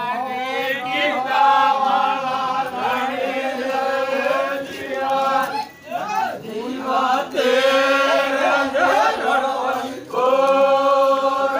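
A group of voices singing a Vagadi folk song together in a chant-like style, on long held notes. There are two short breaks, about halfway and near the end.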